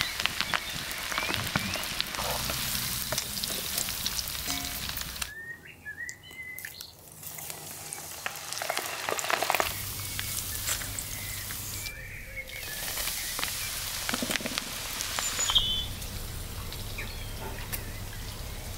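Battered squid deep-frying in a wok of hot vegetable oil, a dense crackling sizzle. The sizzle drops out briefly twice, and birds chirp in the gaps.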